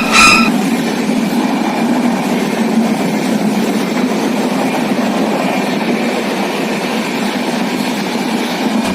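Himgiri Superfast Express train running along the track, a steady rumble of wheels and carriages with a constant low hum. A series of short, evenly spaced beeps ends about half a second in.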